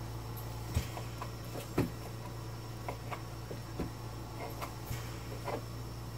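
Knife and fork cutting steak on a plate: a handful of short, scattered clicks and scrapes, the loudest about two seconds in, over a steady low hum.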